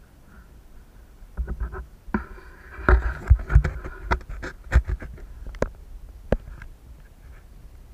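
A fallen mountain bike being handled on a stony dirt trail: scratchy scraping over gravel with a string of sharp knocks and rattles, thickest from about one and a half to five seconds in, then a few scattered clicks.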